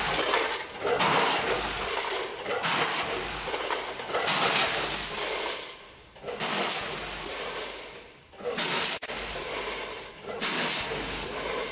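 Tube ice rushing and clattering through the stainless-steel hoppers and discharge funnel of a multihead weighing machine. It comes in repeated surges about every one and a half seconds, one dump of a weighed 500 g portion after another.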